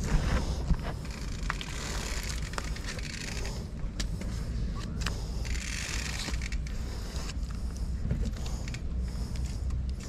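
Mountain bike with its tyres packed with sticky clay mud being walked: scraping and crunching from the clogged wheel, with scattered clicks and a steady low rumble. The mud packed around the tyre keeps the wheel from rolling.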